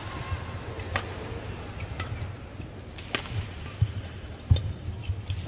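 Badminton rally: rackets striking the shuttlecock in sharp cracks about a second apart, with a few dull thumps of players' feet on the court over a low arena hum.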